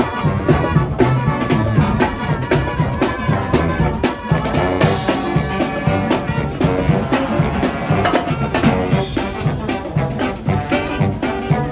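Upbeat music with brass and drums over a steady beat.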